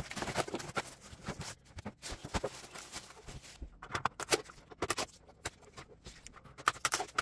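Unboxing handling noise: plastic bag wrapping crinkling and cardboard being handled, then strips of packing tape peeled off the scanner, an irregular string of rustles and clicks.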